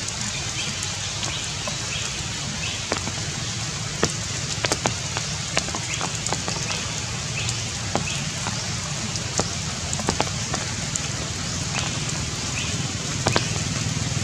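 Steady rain falling, with irregular sharp taps of single drops landing close by.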